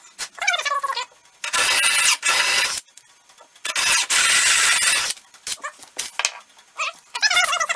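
Cordless drill boring into a cedar log in two bursts of about a second each, with quieter wavering squealing tones between the bursts and near the end.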